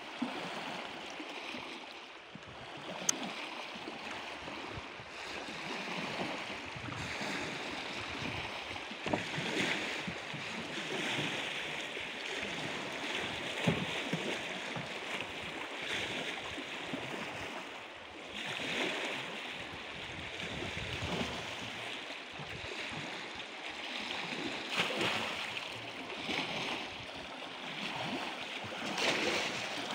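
Water lapping and splashing, a steady rushing noise that swells into louder splashes every few seconds.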